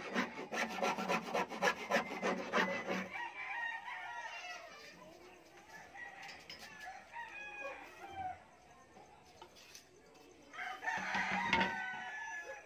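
A hand file rasping at the edge of a hole cut in a wooden speaker cabinet, in quick even strokes for about three seconds, trimming the cutout so a horn tweeter will fit. After that, chickens clucking, and a rooster crowing about eleven seconds in.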